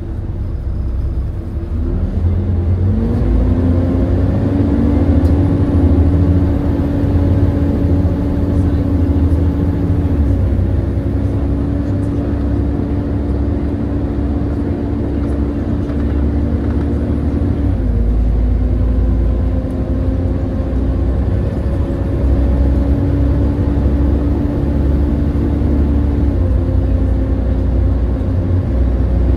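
Volvo B7TL double-decker bus running under way, heard on board: a deep diesel drone with a steady whine over it. The whine rises about two seconds in, holds, and dips slightly about eighteen seconds in.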